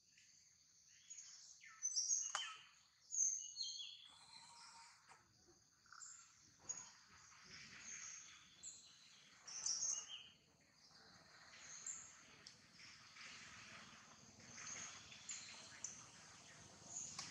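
Birds chirping and calling faintly over outdoor background noise, with a few louder, sharper high calls about two, three and ten seconds in.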